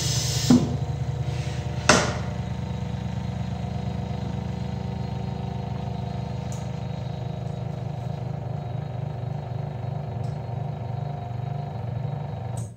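RG-260 smartphone assembly press running with a steady mechanical hum, with a sharp click near the start and a knock about two seconds in; the hum cuts off suddenly near the end.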